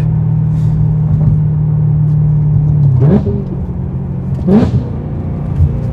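BMW E92 M3's V8 through an IPE valved exhaust with the valves open, heard from inside the cabin: a steady cruising drone, then two quick rises in revs about three and four and a half seconds in as the car is accelerated.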